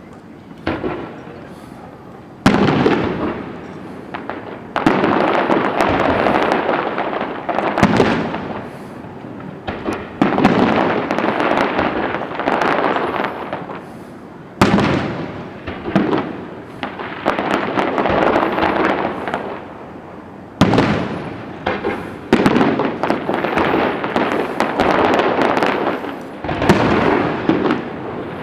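Fireworks display: shells bursting one after another every few seconds, each sharp bang followed by a long fading crackle.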